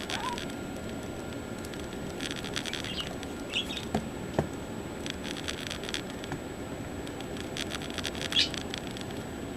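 A small netbook being handled, giving scattered light clicks and pattering taps in a few short clusters, two sharper clicks just past the middle. A few short, faint high chirps are heard in between.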